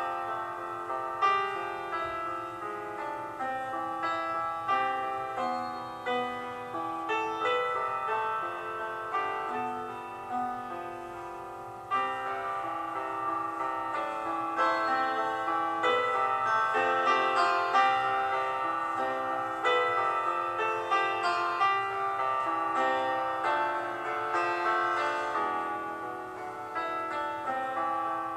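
Background piano music, getting louder about twelve seconds in.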